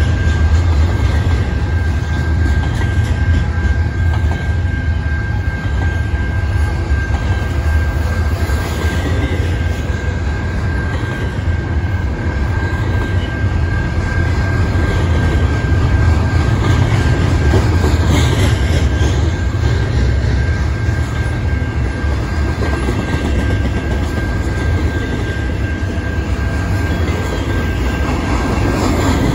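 Freight train of double-stack container well cars rolling past close by: a steady, loud rumble of steel wheels on rail, with a thin high whine held on one note.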